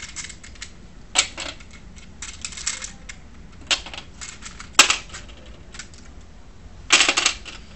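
Small metal screw-and-nut pieces clicking and rattling in a plastic tray as they are picked out by hand: scattered clicks, one sharp click about five seconds in, and a short burst of rattling near the end.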